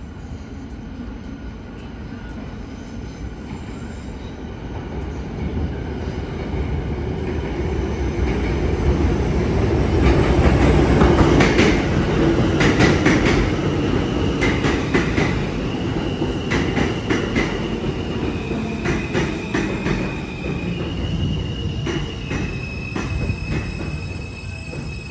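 R160 New York City Subway train pulling into an elevated station. A rumble of steel wheels on the rails builds to a peak about halfway through, with clacking over the rail joints. High wheel squeal then rises as the train slows to a stop.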